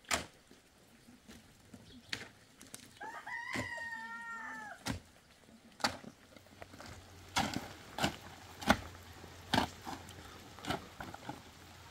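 A shovel strikes stony, muddy soil about ten times, each a sharp knock, the loudest ones coming in the second half. About three seconds in, a rooster crows once, a long call of about two seconds that drops in pitch at the end.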